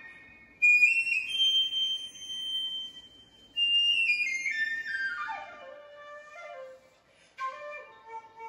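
Dance accompaniment music led by a flute. The flute holds a long high note, then plays a run of notes that falls step by step. Near the end a new phrase starts with a sharp attack and pulsing lower notes.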